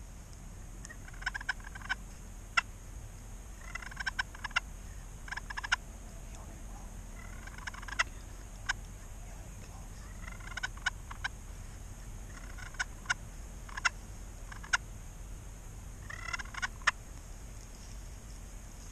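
Pot-style friction turkey call worked with a wooden striker, imitating a hen: short runs of yelps mixed with sharp clucks, repeated every two seconds or so.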